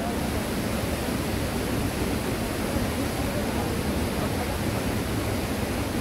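Cheonjiyeon Falls, a 22-metre waterfall, pouring into its plunge pool: a steady, even rush of falling water.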